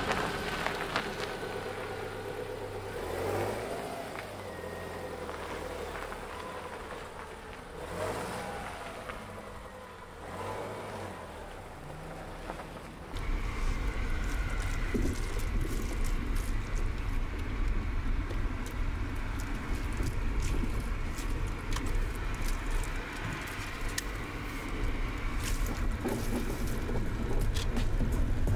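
Subaru Outback wagon driving on a gravel road, heard from inside the cabin. The engine note rises and falls with speed at first, then about halfway through a louder, steady rumble of tyres on gravel takes over, with many small ticks of gravel.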